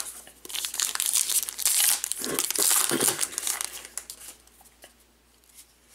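Foil wrapper of a baseball card pack being torn open by hand, crinkling and tearing, dying away about four seconds in.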